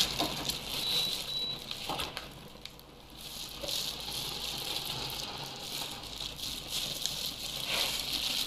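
Thin plastic food-prep gloves crinkling and rustling as hands tear boiled chicken into shreds in a stainless steel bowl, with soft tearing of the meat; the rustling eases briefly about three seconds in.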